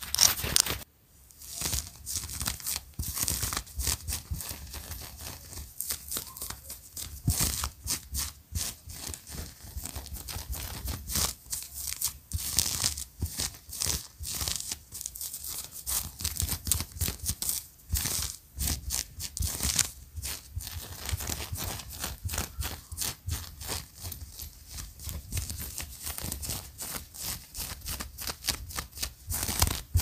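Close-miked clothing sounds: fingers scratching, rubbing and plucking at fabric, first a denim jacket around its buttons, then a knit top. The sounds come as quick, irregular scratches and rustles.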